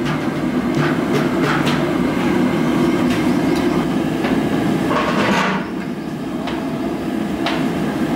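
Steady low rumble with a few sharp metal knocks and clinks spread through it: kitchen clatter around a large iron kadai being worked with a long ladle.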